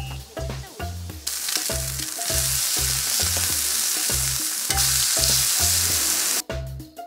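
Meat patties and eggs frying on a flat-top griddle. The sizzle grows loud about a second in and cuts off suddenly near the end.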